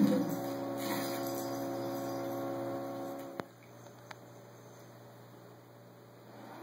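A steady hum of several held tones that cuts off abruptly with a click about three and a half seconds in, leaving only a faint low electrical hum.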